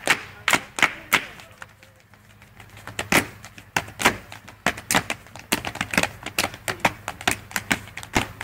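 Body percussion by several people: hand claps and slaps on the chest beating out a rhythm of sharp strikes, about three a second. It drops away briefly about a second and a half in, then resumes more densely.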